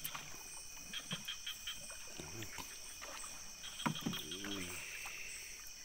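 Night ambience at the side of a wooden boat on the water: a steady high insect chorus, with light knocks and water sounds from a swimmer handing a speared fish up over the gunwale, and a brief murmured voice about four seconds in.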